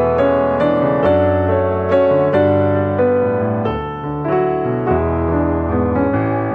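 Background piano music: a slow melody of sustained notes.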